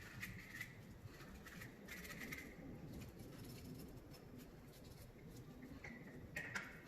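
Faint, irregular scratchy rubbing in short bursts, with a few light clicks: car parts being scrubbed or wiped clean by hand.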